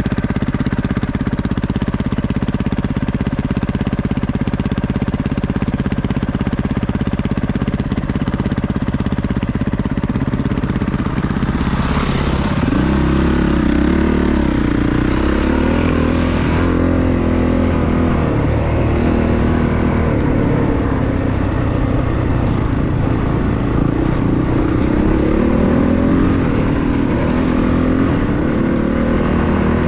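Honda CRF450RX's single-cylinder four-stroke dirt bike engine idling steadily, then revving and pulling away from about twelve seconds in, its pitch rising and falling with the throttle as the bike picks up speed. A few seconds of rushing noise come in as it sets off.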